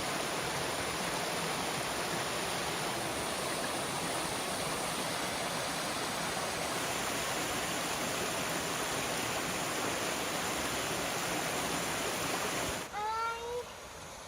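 Steady rushing of a waterfall. It cuts off abruptly near the end, and a brief rising high-pitched call follows over quiet.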